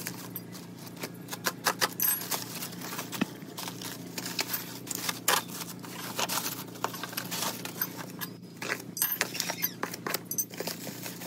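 Plastic packaging crinkling and rustling in irregular crackles as a black plastic mailer bag is handled and pulled off a bubble-wrapped parcel by hand.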